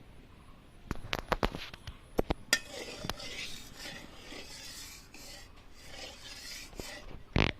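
Sharp clinks of utensils against metal cookware, then a stretch of scraping and rasping in the kadai, ending in one louder knock.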